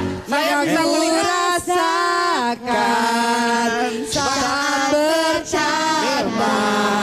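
A woman singing into a microphone, holding long notes that slide between pitches, with brief breaks for breath.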